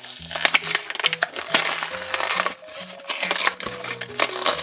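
Clear plastic blister pack crackling and its cardboard backing tearing as the toy package is pulled open by hand, in many quick sharp crackles. Background music with low sustained notes plays underneath.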